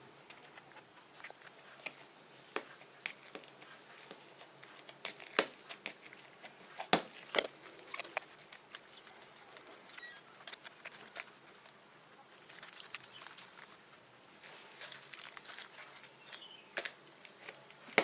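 Fluffy slime being squeezed and poked by hand, making irregular sticky clicks and small crackling pops, the loudest a few snaps around the middle.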